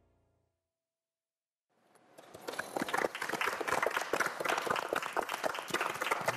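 The last faint note of the music dies away into a silence, then applause breaks out about two seconds in and keeps going, dense and steady.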